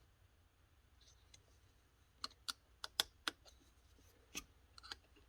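Small, sharp clicks of tools and small parts being handled while the tape transport mechanism of a VCR is taken apart, in two short runs of several clicks each about halfway through and near the end.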